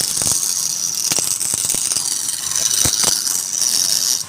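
Wood being cut on a turning lathe: a steady high hiss of the tool shaving the spinning workpiece, with irregular rattling clicks throughout.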